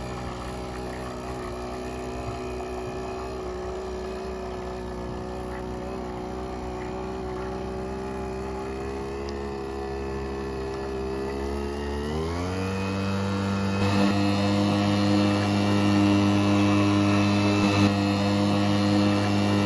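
Small 1.5 hp Tanaka two-stroke outboard motor running steadily as it pushes a dinghy along. About two-thirds of the way through its pitch rises over half a second and it runs higher and louder from then on, opened up to full throttle.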